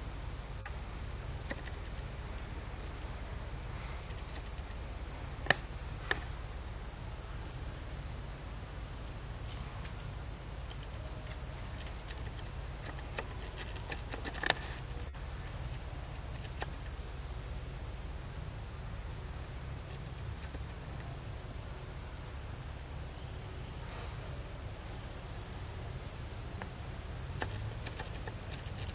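Insects chirping steadily, a high pulse repeating a little more than once a second, over a low steady rumble. A few sharp clicks sound at about five and a half, six and fourteen and a half seconds in.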